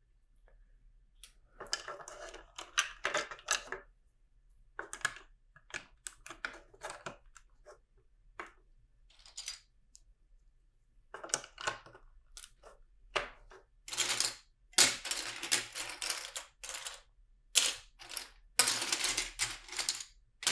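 Small plastic LEGO pieces clicking and rattling under the hands as they are sorted through and handled, in irregular bursts of quick clicks, with longer rattles near the end.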